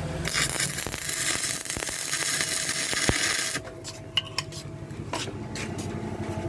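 Stick-welding arc from an Arctech 250-amp welding machine, crackling and sizzling for about three seconds, then cutting off suddenly. A few sharp metallic clicks follow.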